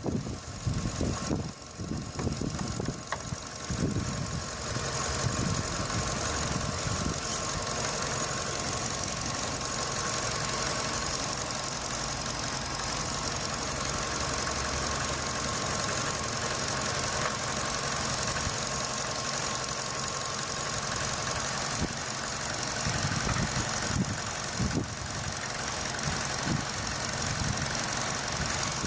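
Vauxhall Meriva B engine idling, heard close up in the engine bay, with an irregular rattle that the owner traces to something loose on the radiator fan housing. Knocks stand out in the first few seconds and again near the end.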